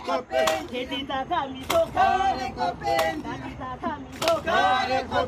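A group of men and women singing and chanting together, several voices overlapping, with a sharp hit about every second and a quarter, four in all.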